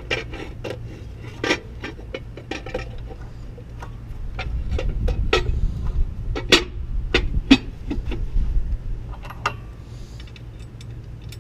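Irregular metallic clinks and knocks of hand tools and engine parts being handled during reassembly, a dozen or more sharp strikes, over a low rumble that swells about halfway through.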